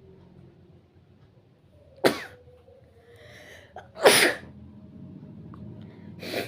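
A person sneezing three times, about two seconds apart. The second sneeze, about four seconds in, is the loudest, with a breath drawn in just before it; the third is weaker.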